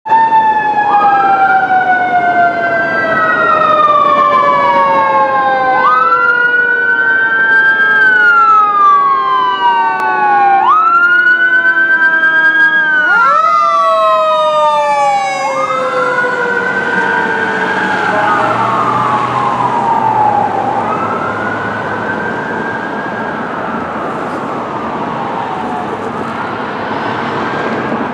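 Los Angeles Fire Department engine running code 3 with its sirens on. A wail rises and falls about every two and a half seconds over a second, lower tone that slides slowly down, jumps back up about 13 seconds in and slides down again. From about 16 seconds in the sirens grow fainter and more smeared as the engine moves away.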